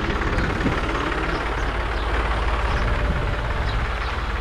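Tractor engine idling steadily, a low, even rumble.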